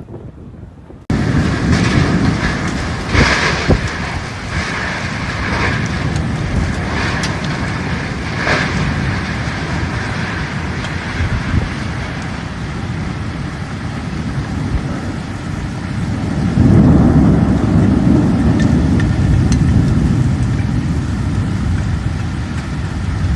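Heavy rain with gusting wind, a dense steady noise. A louder low rumble swells up about two-thirds of the way through.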